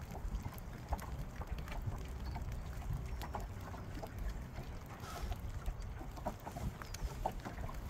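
Wind rumbling on the microphone, with scattered light ticks and taps.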